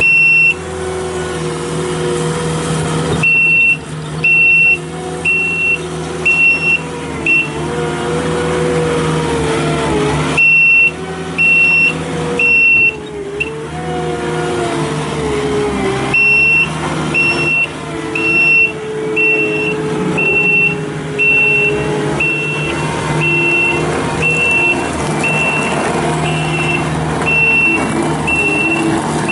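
Kubota SSV65 skid steer's turbo diesel engine running, its pitch dipping and recovering as the machine works, with the reversing alarm beeping about one and a half times a second in three runs: a short one a few seconds in, another around ten seconds in, and a long one through the second half.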